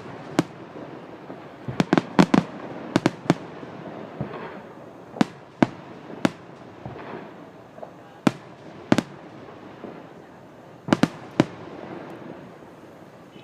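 Aerial fireworks shells bursting in sharp bangs at irregular intervals, some coming in quick clusters of two or three.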